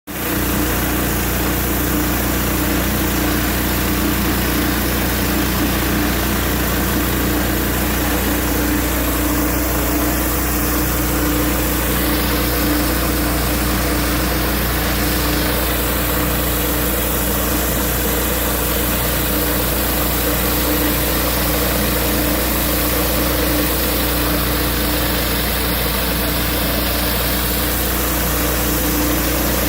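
Pressure washer's petrol engine running steadily, with a high hiss over it that shifts a few times, about 12, 16 and 24 seconds in.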